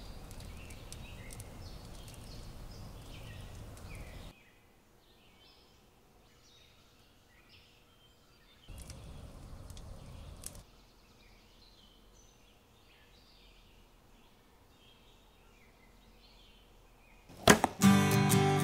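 Quiet outdoor ambience with scattered short high chirps, broken twice by a few seconds of rushing, rumbling noise. There is a single sharp knock about ten seconds in, and strummed acoustic guitar music starts near the end.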